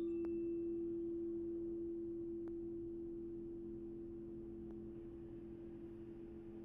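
Singing bowl ringing out: one low, steady tone with a fainter lower tone beneath it, slowly fading.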